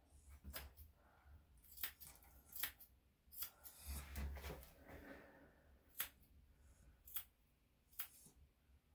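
Grooming scissors snipping hair around a dog's front paw, one sharp snip every second or so, unevenly spaced, with a soft low rustle about four seconds in.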